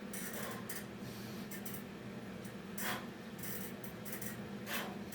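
Rubbing and rustling from a person working through Navy SEAL burpees, with two short hissing bursts, one about three seconds in and one near the end, over a steady low hum.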